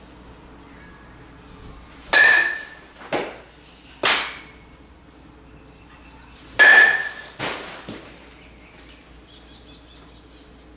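Metal baseball bat hitting a ball twice, each contact a sharp ringing ping, about two seconds in and again near the middle. Each hit is followed within a second or two by duller knocks of the ball striking the cage and bouncing.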